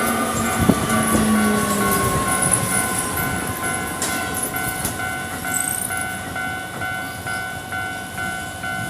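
Japanese railway level-crossing alarm sounding its rapid, evenly repeating electronic ding while a Keio Line electric train passes over the crossing. The train's whine falls slowly in pitch and its rumble fades over the first few seconds, leaving the crossing bell ringing on.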